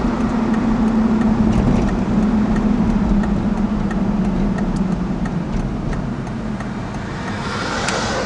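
Car engine hum and road noise heard from inside the cabin while driving. The hum sinks slightly in pitch and eases off after about five seconds.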